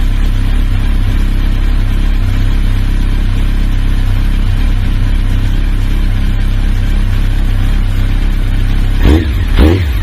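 Honda CB1300 inline-four engine idling steadily, then given two quick throttle blips near the end, each rising and dropping back.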